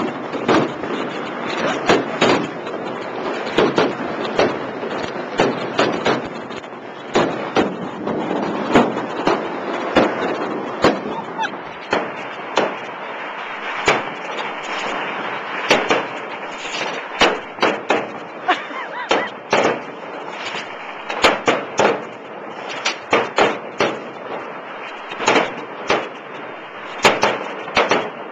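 Fireworks exploding at close range: a dense, irregular run of loud bangs over a steady crackle, with clusters of rapid bangs near the end.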